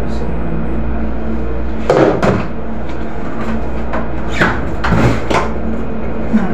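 Steady low hum of a ship's machinery, with several knocks and bumps as someone climbs the wooden storeroom shelving: a cluster about two seconds in, more between about four and a half and five and a half seconds in, and a small one near the end.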